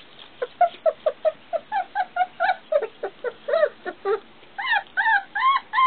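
Basset hound puppy whimpering: a quick run of short whines, about four a second, turning into a few longer, higher whines near the end.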